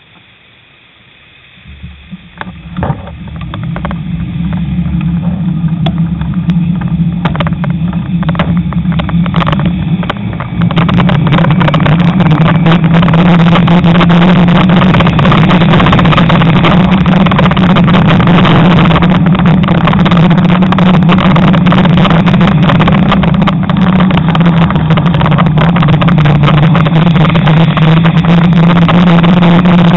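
Wind buffeting a bicycle-mounted camera's microphone as the bike sets off and gets up to speed: a few clicks and knocks at the start, then a rush that grows over about ten seconds into a loud, steady low rumble.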